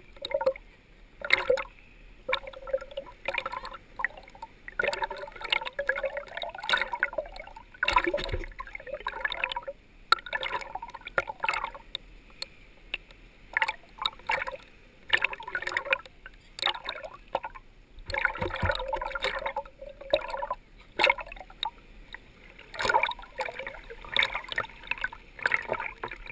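Small waves sloshing and gurgling around a camera sitting at the water's surface, in uneven splashes with short quieter gaps.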